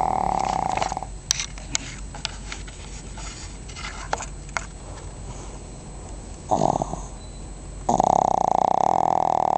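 A sleeping pug snoring: a loud buzzing snore that stops about a second in, a few seconds of quieter breathing with small sniffs, then a short snore and a long, loud snore near the end.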